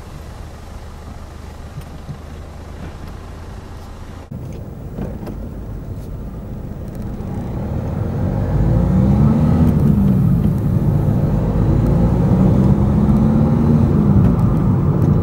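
Car engine and road noise while driving. From about halfway through it grows louder as the car accelerates, with the engine note rising and falling in pitch twice.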